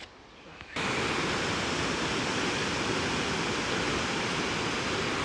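Waterfall: a steady, even rush of falling water that cuts in abruptly about a second in and stops suddenly near the end.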